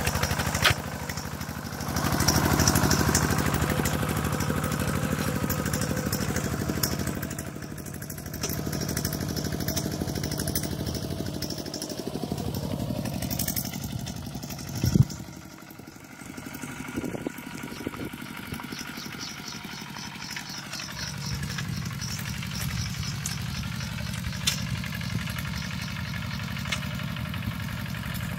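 Kubota RT120 walking tractor's single-cylinder diesel engine running steadily as it pulls a plough through the rice field. A single sharp knock comes about halfway through, and after it the engine sounds quieter and farther off.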